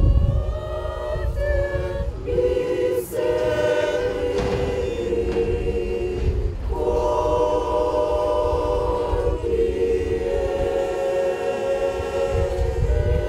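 Unaccompanied women's choir singing in harmony, holding long chords in several voices, with short breaks between phrases every few seconds.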